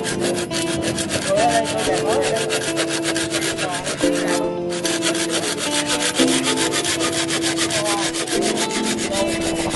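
Hand saw cutting through a bamboo pole in quick, regular back-and-forth strokes, with a brief pause about four and a half seconds in.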